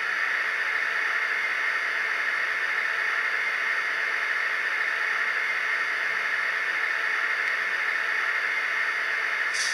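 Hiss sound effect from the ESU LokSound decoder of an HO-scale BR 232 'Ludmilla' diesel locomotive model, played steadily through the model's small loudspeaker, with a short sharper hiss near the end.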